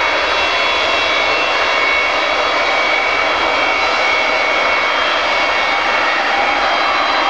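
The four Progress D-18T turbofans of an Antonov An-124-100 running on the ground as the freighter taxis: a steady jet rush with several steady high whining tones over it.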